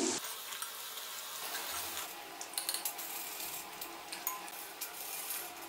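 Star-shaped besan papdi deep-frying in hot oil on a low flame: a steady sizzle with many small crackling pops.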